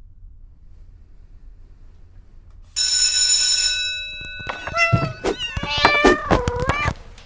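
A sudden bright bell-like ring, then a quick string of domestic cat meows that bend up and down in pitch.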